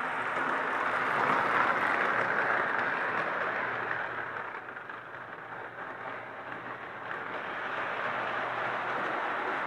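1936 Marx 0-4-0 tin-plate toy locomotive and its tin-plate cars running on the track: a steady whirring rumble of motor gearing and wheels on rail. It is louder in the first couple of seconds, dips in the middle, then builds again.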